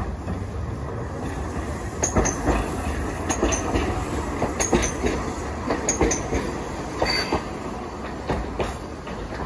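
Hiroden 3950-series 'Green Liner' articulated tram passing close by on street track: a low rumble of the running gear, and from about two seconds in the wheels clack over rail joints in pairs, roughly one pair every second and a quarter.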